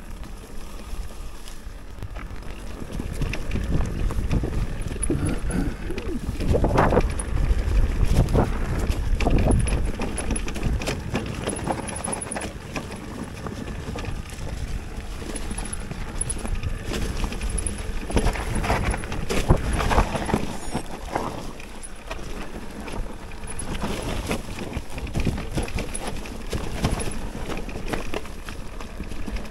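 Mountain bike riding a rough trail: tyre rumble with the bike rattling and knocking over bumps, and wind on the microphone. The knocking is heaviest twice, about a quarter of the way in and again about two-thirds of the way in.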